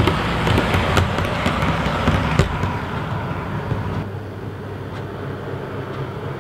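OO gauge Class 143 Pacer model train running on the layout: a steady motor hum with irregular clicks of its wheels over rail joints and pointwork. It is loudest over the first few seconds as the unit passes close by, then quieter from about four seconds in.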